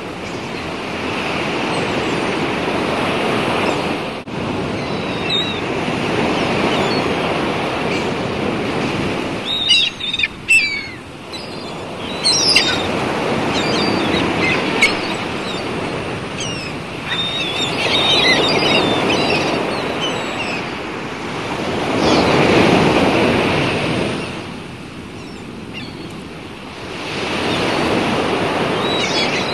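Sea waves washing in slow surges that rise and fall every few seconds, with birds calling in short chirps now and then.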